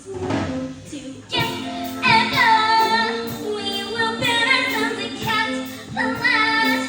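Young voices singing a musical-theatre song over instrumental accompaniment with a steady beat.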